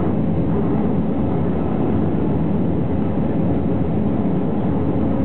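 Steady rumble of a jet airliner's engines and airflow heard from inside the passenger cabin, even and unchanging, with a faint steady hum.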